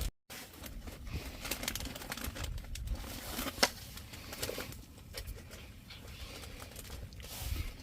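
Faint rustling with scattered light clicks and taps, one sharper click about three and a half seconds in.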